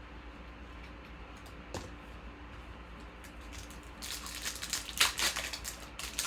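Trading cards being handled: a soft tick about two seconds in, then from about four seconds a couple of seconds of cards sliding and rustling against each other.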